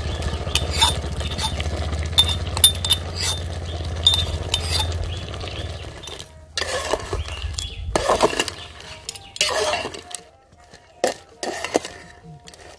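A metal spoon clinking and scraping against a small metal cup as crushed garlic is knocked out into an aluminium cooking pot: many sharp, ringing clinks over the first five seconds. Then a few longer scraping strokes of a metal spatula stirring in the pot.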